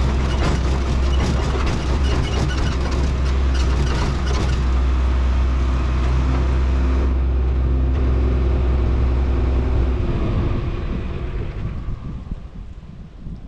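Tractor engine running steadily with rattling for the first few seconds; the engine sound stops about ten seconds in and the level dies away.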